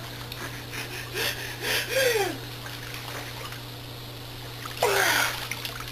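Pool water sloshing and splashing as people move about chest-deep, with short voiced gasps. About five seconds in comes a louder splash together with a brief falling vocal sound.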